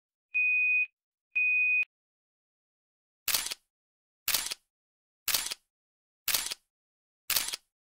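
Film-leader countdown beeps: two short high beeps a second apart. Then, from about three seconds in, a camera-shutter click once a second, five times.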